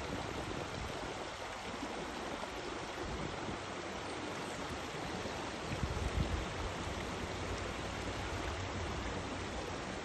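Small mountain stream running over mossy rocks: a steady, even rush of water, with a brief low buffet on the microphone about six seconds in.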